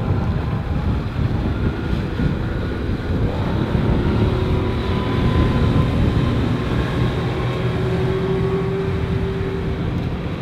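Honda 30 hp four-stroke outboard motor on a rigid inflatable boat running steadily under way, a continuous engine hum with steady tones over a noisy rush of wind and water.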